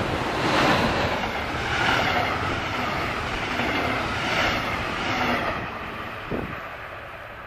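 A class 246 diesel-electric locomotive hauling double-deck coaches passes close by with a loud, even rushing of engine and wheels on rail. The sound swells several times in the first few seconds, then fades as the last coach pulls away.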